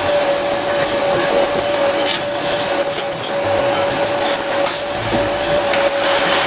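A motor-driven machine running steadily, a loud even whirring noise with a constant hum-like tone in it.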